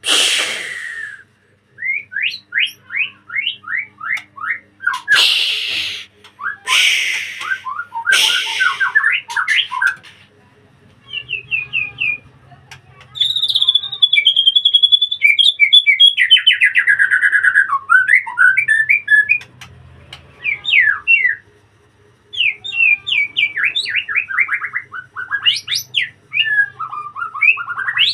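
White-rumped shama singing loudly and continuously. Its song is made of fast runs of short falling whistles and a long whistle that glides down, broken about five to nine seconds in by a few harsh, rasping notes.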